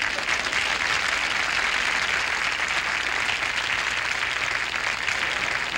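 Television studio audience applauding steadily, a dense even clapping after a punchline.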